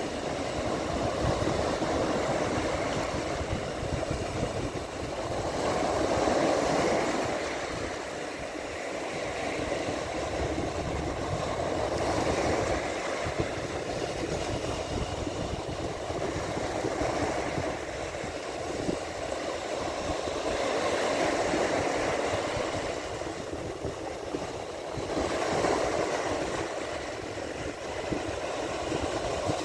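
Sea waves breaking and washing onto the shore, the surf swelling and fading every few seconds, with a low, uneven rumble underneath.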